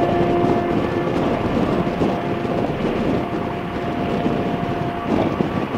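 Motorcycle riding at road speed: engine running under wind and road noise on the microphone, with a steady tone that drops away about five seconds in.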